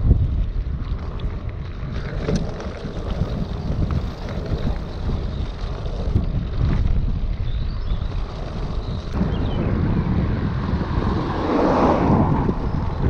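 Wind rushing over an action camera's microphone on a moving bicycle, with a low rough rumble underneath. It swells louder for a moment near the end.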